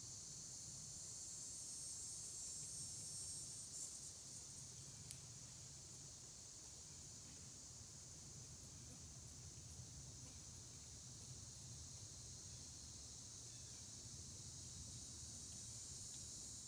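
Steady high-pitched drone of an insect chorus in summer woodland, with a faint low rumble underneath and a small click about five seconds in.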